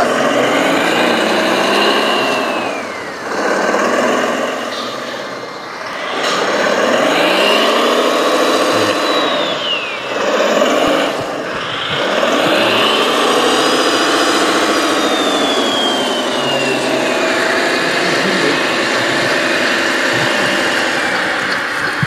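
RC tipper truck's engine sound revving up and down in about four long surges, each with a high whine that glides down in pitch. The truck is working to push through deep loose sand where it is bogging down.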